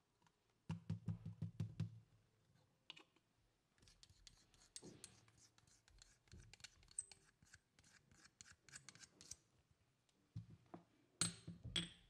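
Small green stone jar being handled and its white powder worked out onto a tray: a quick run of light knocks about a second in, then a long stretch of faint scratchy clicking and scraping, and a few louder clacks of stone being set down near the end.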